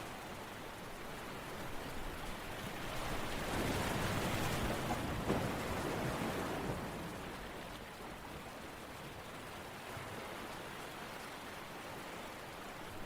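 Steady rain falling, swelling louder for a few seconds near the middle before easing back.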